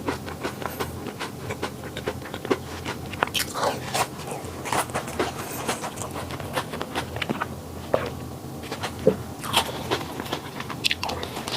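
Dog chewing and crunching flaky pastry, with short irregular bites and crunches throughout.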